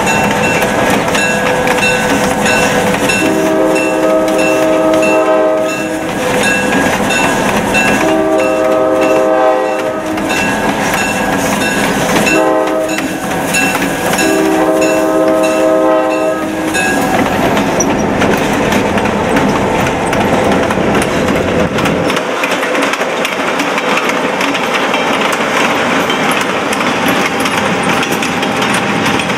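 EMD GP-9 diesel locomotive sounding its multi-tone air horn in the grade-crossing pattern: two long blasts, a short one and a final long one. It runs over the steady noise of the moving locomotive, which carries on alone for the last dozen seconds.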